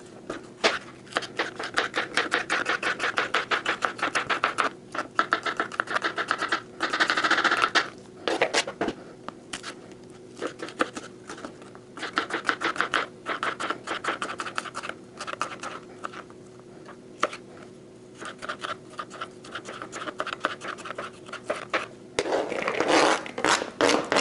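Kitchen knife slicing bell pepper into thin strips on a plastic cutting board: quick runs of sharp taps, several a second, with short pauses between. Near the end the knife scrapes the cut strips across the board.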